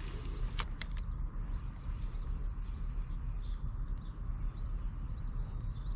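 Faint bird chirps over a steady low rumble, with a couple of sharp clicks about half a second in.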